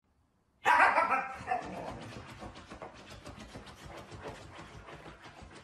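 A dog barks, loud and short, about half a second in, followed by quieter clicking noise.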